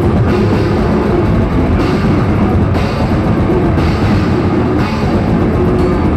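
Technical death metal band playing live: distorted electric guitars, bass guitar and a drum kit, loud and dense, with cymbal crashes about once a second.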